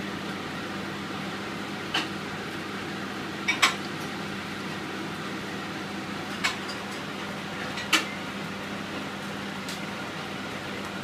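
Steady motor hum from a kitchen appliance, with a few short sharp clinks about 2, 3.5, 6.5 and 8 seconds in.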